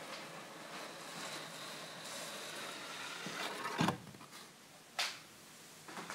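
A picture card sliding out of a wooden kamishibai stage: a soft scraping rustle as the card is drawn along the frame, then a sharp knock near the end of the slide and a lighter knock about a second later.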